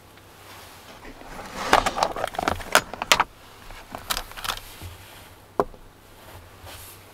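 A plastic storage box being unlatched and opened, with tea lights in thin metal cups clinking and rattling inside as they are handled. It is a dense run of clicks and rattles lasting about two seconds, then a few lighter clicks and one single click a little later.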